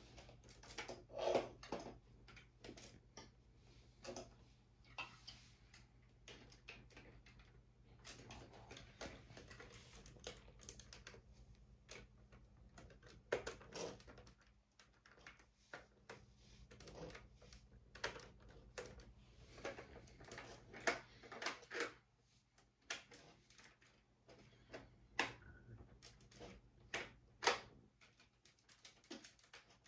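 Lego plastic parts of a brick-built MG34 model clicking and clacking as the gun and its drum magazine are handled, in irregular sharp clicks, some louder than others, with no steady rhythm.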